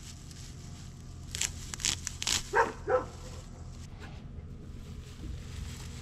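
A dog barking, several short barks in quick succession between about one and a half and three seconds in.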